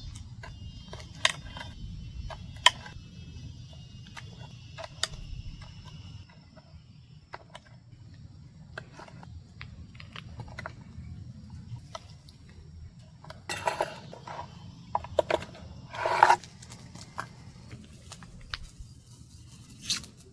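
Scattered clicks, taps and knocks of small hard objects being handled, with a couple of louder clattering moments about two-thirds of the way through.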